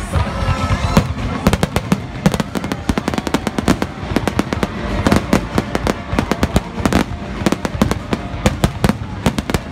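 Aerial fireworks going off in a rapid barrage of sharp bangs and cracks, several a second, growing denser after the first second or so.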